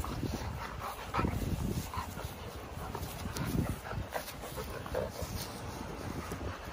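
Two dogs play-fighting, with short growls and yips coming in quick, irregular succession.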